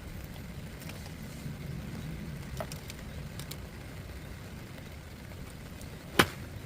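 A golf club striking a ball: one sharp crack about six seconds in, over a steady low rumble.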